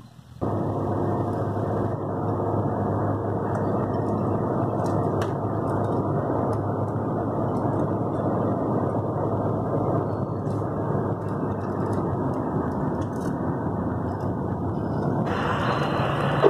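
Jeep Cherokee driving on a paved road, heard from inside the cab: a steady, dull rush of engine, tyre and wind noise. Just before the end it gives way to a brighter noise.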